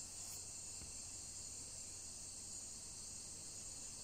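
Steady, high-pitched drone of a field insect chorus, with nothing else standing out.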